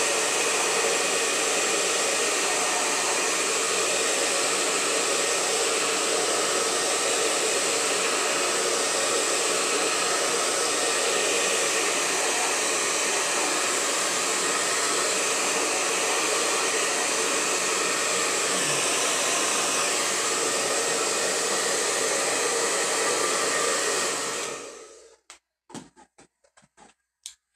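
Handheld hair dryer blowing steadily on a freshly painted acrylic canvas, then switched off near the end, followed by a few light knocks.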